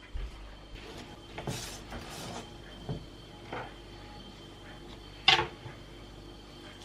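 Kitchen work sounds: dishes and utensils being handled, with scattered knocks and rustles and one sharp clack about five seconds in.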